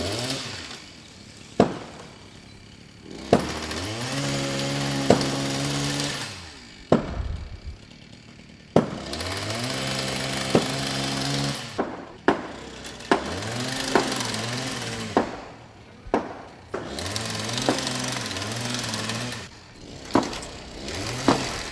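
A small power-tool motor spinning up, running for two or three seconds and winding down, about five times over, with sharp clicks between the runs.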